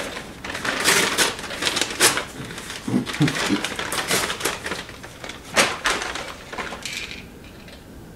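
Irregular clicks and clatter from hands handling tools and a small disassembled electric starter motor, dying down near the end.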